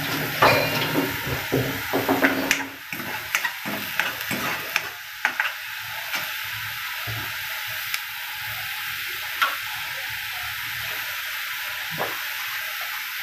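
Ground green masala paste sizzling in hot oil in a kadai, roasting until the oil separates. A metal ladle scrapes and clacks against the pan as it is stirred in the first five seconds or so. After that the sizzle runs steady with an occasional tap of the ladle.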